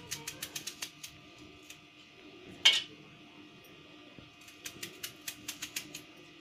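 Kitchen knife slicing through a red onion held in the hand, the blade crunching through the layers in two quick runs of crisp clicks. About two and a half seconds in there is one louder sharp knock with a brief ring.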